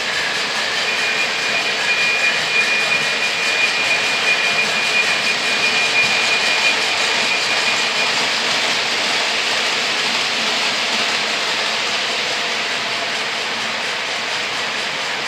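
Lionel O gauge model freight train rolling over three-rail track: a steady whirring rattle of wheels and cars that swells as the train passes and eases off near the end. A thin, steady high tone sounds for about the first half.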